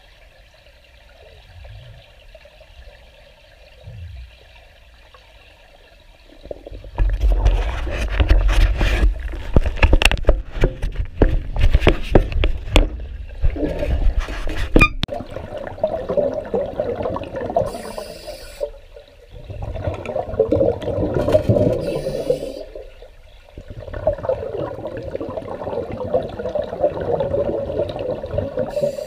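Recorded underwater: a scuba diver's exhaled breath bubbling out of the regulator in three long bursts a few seconds apart. Before them, about seven seconds in, comes some eight seconds of loud knocking and low rumbling as the camera is handled close up.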